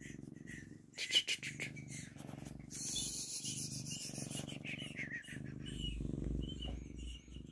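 Domestic cat purring steadily right against the microphone, a low, rapidly pulsing rumble, with its fur rubbing and scratching on the phone.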